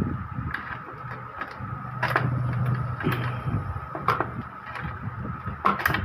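Scattered clicks and knocks of hands and a screwdriver working on the plastic chassis and power supply unit of an Epson inkjet printer, over a steady background hum.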